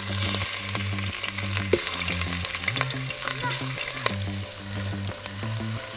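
Chicken pieces shallow-frying in hot oil in a pot: a steady sizzle as the pieces go in, with a few sharp crackles.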